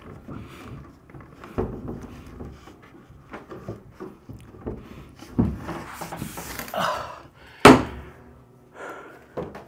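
Wooden Murphy bed frame being lifted and set onto its metal mounting hardware: a run of wood knocks and scrapes, with one loud thunk late on as it drops into place.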